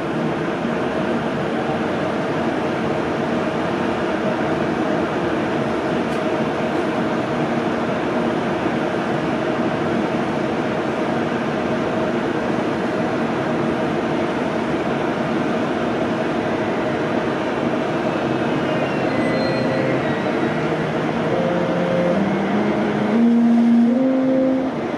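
Electric power car of an ICE 1 high-speed train running with a steady, loud hum. In the last few seconds a set of electric tones steps upward in pitch as the traction equipment takes power and the train starts to pull away.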